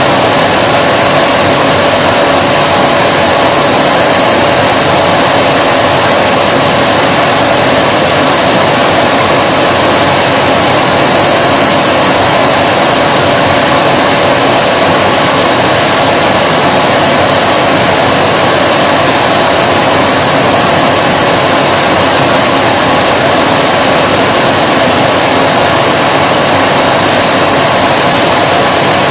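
Vacuum cleaner running continuously, a loud, unchanging rushing whoosh of motor and airflow with a steady mid-pitched hum and a high hiss.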